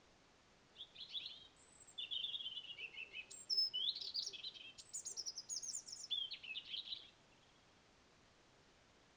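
A songbird singing a varied song of quick trills, falling runs of notes, rising sweeps and very high chirps, starting about a second in and stopping about seven seconds in, over a faint steady hiss.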